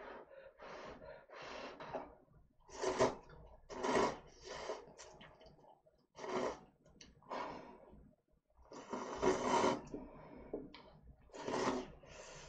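Instant cup noodles being slurped into the mouth in a series of short noisy bursts, about six in all, the longest about nine seconds in.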